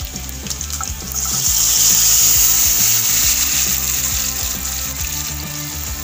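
Blended tomato-and-chile salsa being poured through a plastic strainer into a pan of pork ribs frying in hot oil. A loud sizzle swells about a second in as the liquid hits the hot oil, then slowly dies down.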